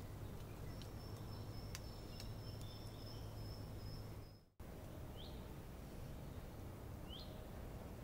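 Faint forest bird ambience: a thin, high, steady trill for about three seconds, then a brief dropout halfway through, then two short chirps from a small bird, over a low steady hum.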